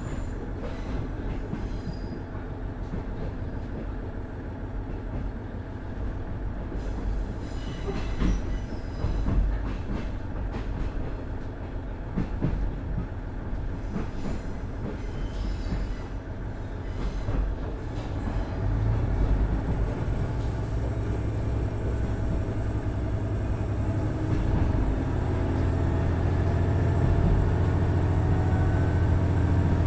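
KiHa 110 series diesel railcar running, with its Cummins DMF14HZA diesel engine and the wheels on the rails. The first half has scattered clacks and a little wheel squeal over the track. About two-thirds in, a low, steady engine drone builds and grows louder again near the end, as the engine works harder.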